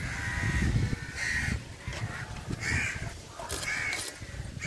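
Crows cawing repeatedly, about once a second, over low scraping and knocking as a fish is worked against a curved boti blade.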